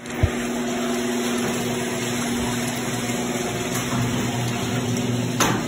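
A small motor running steadily, a constant low hum with a hiss over it, with a short knock just after the start.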